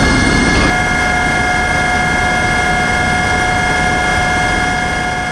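Helicopter in flight, heard from on board: a steady rushing engine and rotor noise with a high turbine whine of several fixed tones over it.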